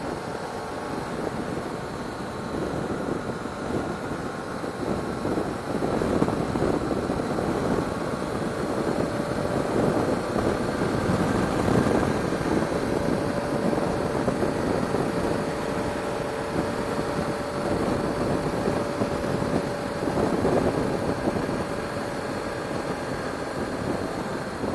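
Motorcycle riding at highway speed: a steady engine hum under a haze of wind and road noise on the bike-mounted microphone, getting a little louder about six seconds in.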